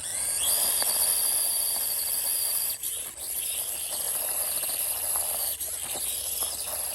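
Axial SCX24 1/24-scale RC crawler driving: its small electric motor and gears give a steady high whine over a hiss. The whine rises in pitch as the truck picks up speed at the very start.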